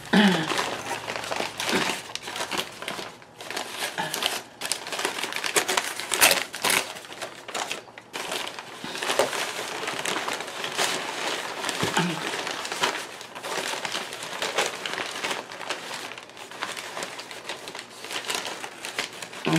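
Packing paper being pulled out of a cardboard box and crumpled in the hands: an irregular, continuous run of crinkling and rustling.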